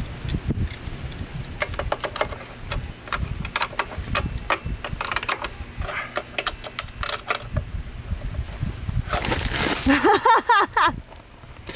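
Irregular light metallic clicking and clinking of hand tools and small parts being handled, just after a roadside motorcycle repair. A short voice sound comes near the end.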